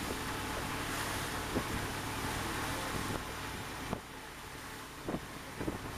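A small open boat under way: steady outboard motor with wind on the microphone and water rushing past the hull, a few light knocks, and the sound easing somewhat about four seconds in.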